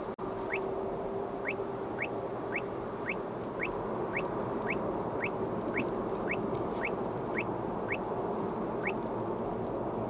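Uniden R7 radar detector sounding its Ka-band alert: short rising chirps about twice a second, stopping shortly before the end, over steady road noise inside the car. The chirps signal police Ka-band radar at about 34.737 GHz.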